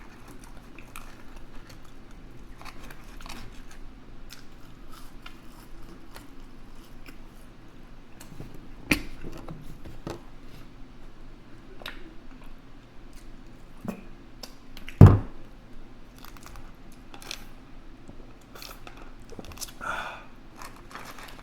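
A person chewing and eating fast food, with scattered small clicks and handling noises over a faint steady hum. A sharp knock about 15 s in is the loudest sound, and a smaller one comes about 9 s in.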